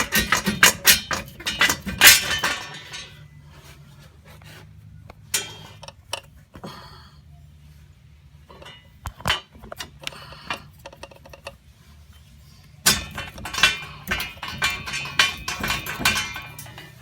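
Metal car parts and tools clinking and rattling as they are handled. There are two busy spells of clatter, one at the start and one from about thirteen to sixteen seconds in, with scattered single knocks between them, over a low steady hum.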